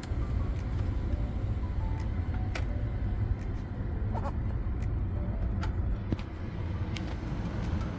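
Low, steady rumble of a 2018 Nissan Armada's 5.6-litre V8 idling, heard from inside the cabin. Scattered light clicks and taps from work on the dashboard panels sound over it.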